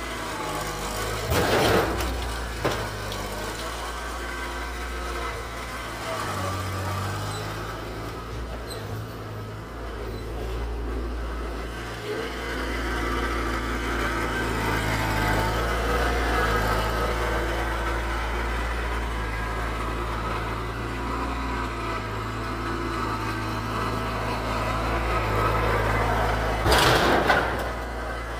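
Mahindra eMax compact tractor's diesel engine running, rising and falling with load as its front loader pushes into a stripped car body. There are two loud impacts of the loader against the car, one about a second and a half in and one near the end.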